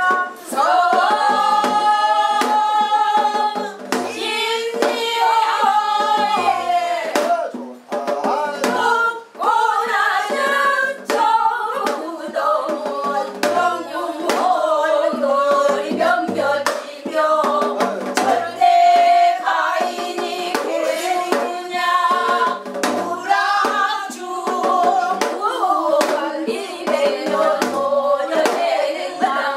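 Women singing a Korean Namdo folk song without instruments, the voices bending and sliding on long held notes, with hand claps keeping the beat.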